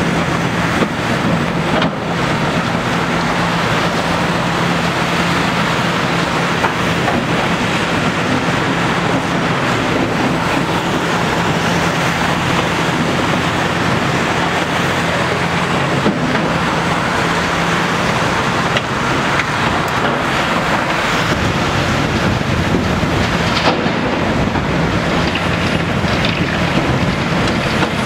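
Hitachi ZX870 LCH large hydraulic excavator working: its diesel engine running steadily under load as it digs, swings and lifts a full bucket of earth. The low engine hum shifts about three quarters of the way through, with a few faint knocks along the way.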